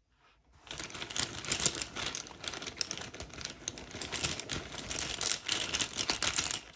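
Small tarot tiles clicking and clattering against one another as they are stirred by hand, a dense run of rapid clicks that starts about half a second in.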